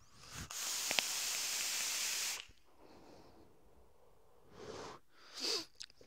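A long draw on an e-cigarette vape mod: a steady hiss of air pulled through the atomizer for about two seconds, with a brief thin whistle about a second in. Near the end comes a softer, breathy puff as the vapour is blown out.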